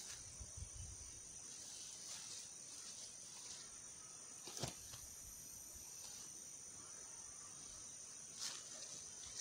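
Insects droning steadily at a high pitch, faint, with one sharp click about halfway through.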